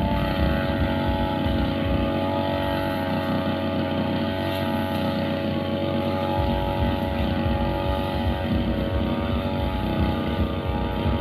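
Two-stroke brush cutter engine running steadily at high revs.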